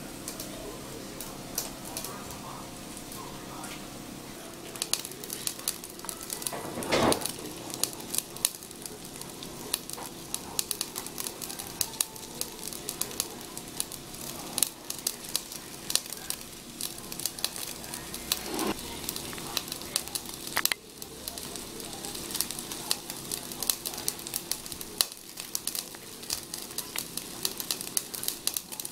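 Meat skewers sizzling and crackling over the glowing charcoal of a Femor smokeless tabletop grill, with many small sharp pops and a louder knock about seven seconds in. A steady hum, typical of the grill's built-in fan, runs underneath.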